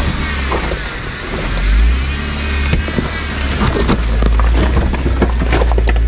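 Jeep Wrangler JKU Rubicon's V6 engine rumbling low as it crawls up a rocky, washed-out climb, with a faint whine that rises and falls. Rocks crunch and knock under the tires, most often in the second half.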